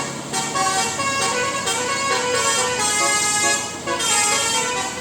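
Bus telolet horn, a multi-note musical horn, playing a quick run of changing notes.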